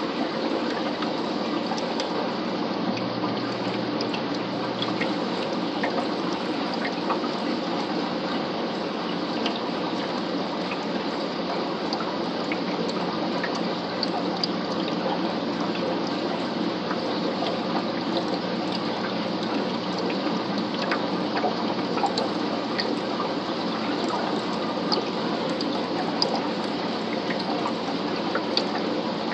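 Steady running and bubbling water in an aquarium tank, with a faint hum underneath and scattered small ticks.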